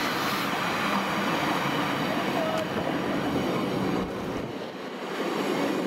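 Roslagsbanan X10p electric multiple unit pulling in along the platform: a steady rush of wheels on rail and traction motors, dipping briefly in loudness about four seconds in.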